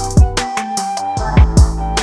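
Background music with an electronic beat: deep kick drums dropping in pitch, quick high hi-hat ticks and steady held synth notes.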